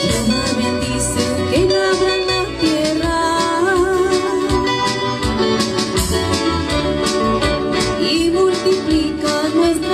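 A woman singing a Spanish-language hymn with a band of strummed guitars and other string instruments.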